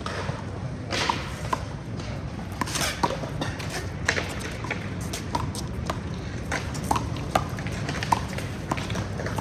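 A one-wall handball rally: a rubber handball is slapped by hand and smacks off the wall, giving a string of sharp hits every half second to second and a half, several with a short ringing ping. A steady low rumble lies underneath.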